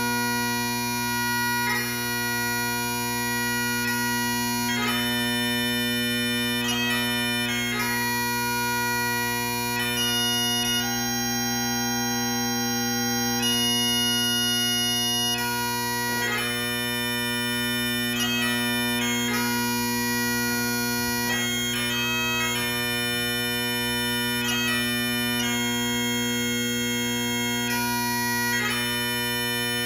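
Bagpipes playing a tune: a chanter melody moves over steady drones that hold the same low notes throughout.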